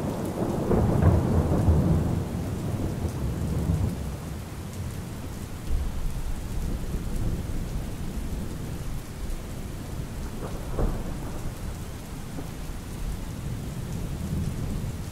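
Steady rain with rolling thunder, the rumble loudest in the first few seconds and then fading to a low background roll, with a smaller swell about two-thirds of the way through.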